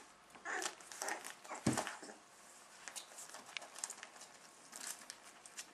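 A litter of young puppies scrambling over each other on a blanket: scratchy rustling and scuffling with small sharp ticks, and one soft thump about a second and a half in.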